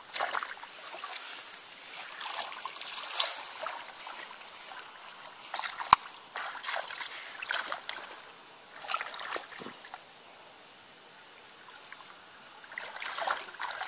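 Irregular splashing and squelching of hands and feet working through shallow muddy water while feeling for fish by hand, with a sharp knock about six seconds in and a quieter stretch near the end.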